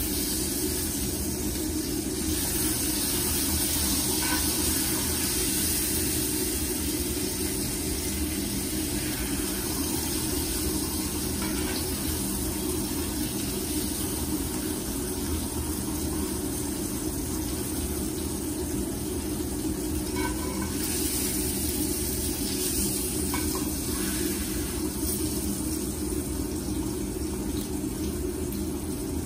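Steak searing in a hot skillet, sizzling steadily over a constant low hum.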